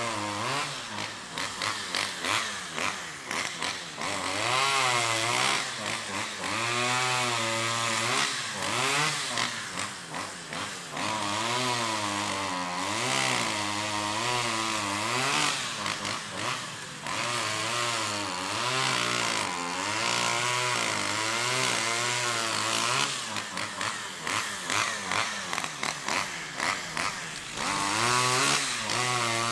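Two-stroke chainsaw running and cutting up a felled tree, its engine pitch rising and falling over and over as the throttle is opened and eased between cuts through branches and trunk.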